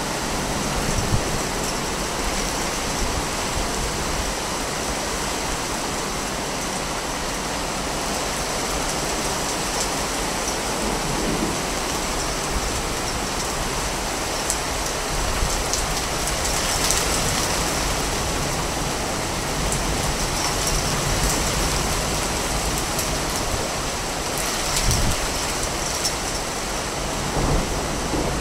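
Steady rushing noise with a low rumble underneath and light crackles, unbroken throughout.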